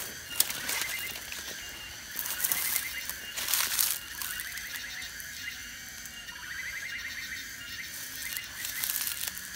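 Rustling and footsteps in dry leaf litter and undergrowth, loudest about two and three and a half seconds in, over a steady night chorus of calling insects: a fast-pulsing high tone and a short trill repeating about every two seconds.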